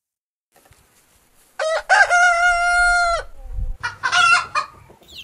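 A rooster crowing about a second and a half in: a cock-a-doodle-doo that ends in one long held note. A shorter call follows about a second later.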